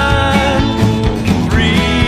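Country-bluegrass music with plucked guitar over a steady bass beat.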